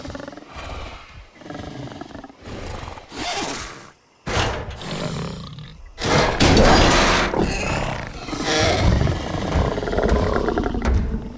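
Monolophosaurus dinosaur vocal sound effects, built mostly from pig vocalizations: a run of short, quieter calls, then a sudden louder call about four seconds in and the loudest calling from about six seconds on.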